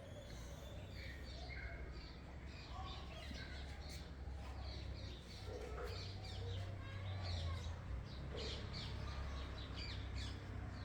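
Small birds chirping on and off over a steady low rumble.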